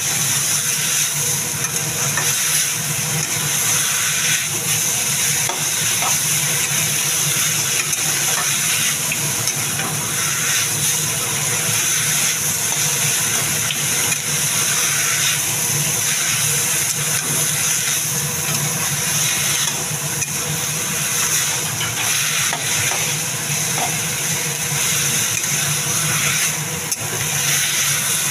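Fiddlehead fern greens (dheki saag) sizzling as they are stir-fried in a black kadai, with a spatula stirring and scraping against the pan. A steady low hum runs underneath.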